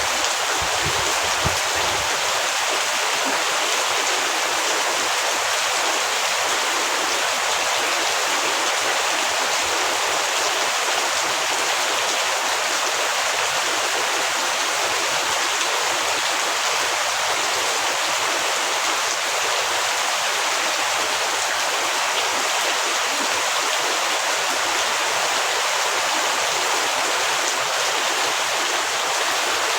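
Heavy rain falling in a steady, even hiss, with a brief low rumble about a second in.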